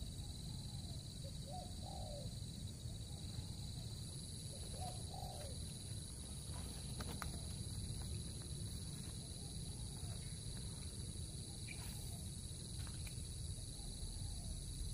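Birds calling in short, low, repeated cooing notes over a steady high insect drone, with a few faint clicks about halfway through.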